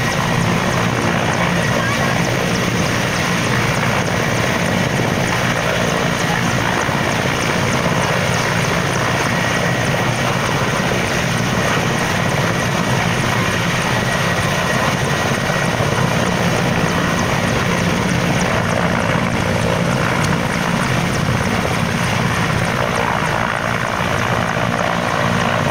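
Mil Mi-8 military helicopter hovering low: a steady, loud blend of main-rotor noise and twin turboshaft engine sound, with a faint high whine held throughout.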